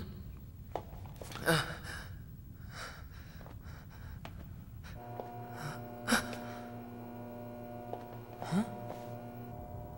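A person's short gasping breaths, several in a row, a few with a rising catch in the voice. A steady hum comes in about halfway and stops shortly before the end.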